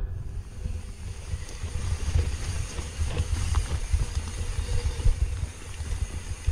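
Wind buffeting the microphone in an unbroken low rumble, over an even rushing hiss and faint rattling from a mountain bike moving over rough ground.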